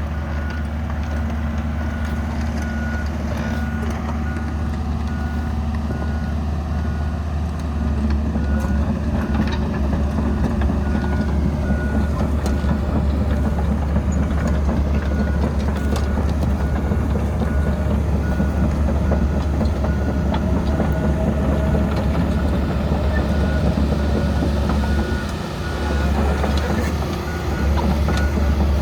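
Komatsu PC160LC-7 hydraulic excavator's diesel engine running under work, with its warning alarm beeping steadily at an even rhythm. The engine gets louder about a quarter of the way in and drops off briefly near the end.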